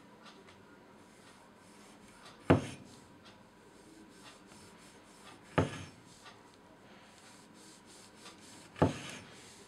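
Hultafors carpenter's hatchet slicing through a cherry tomato: three sharp knocks as the blade comes down on the wooden cutting board, about three seconds apart, with faint rubbing of the blade between them.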